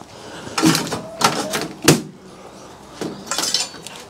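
Sheet-steel monitor chassis parts and a circuit board clattering and knocking as the board is worked loose by hand. The sound comes in four short bursts, the sharpest a single click about two seconds in.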